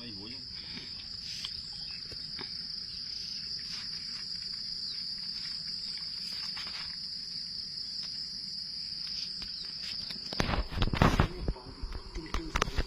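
Steady high-pitched chorus of insects, crickets or cicadas, trilling without a break. About ten seconds in, loud irregular knocks and rustling noises come over it.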